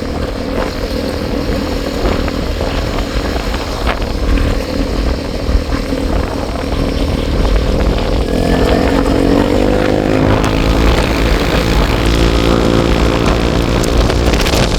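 Motorcycle engine running under way, with rumbling wind on the microphone; about eight seconds in the engine pitch rises as it speeds up, then holds steady.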